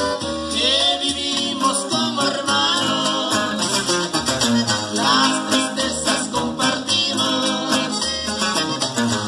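Bajo quinto strummed and picked in a steady rhythm, with a man's voice singing the melody over it.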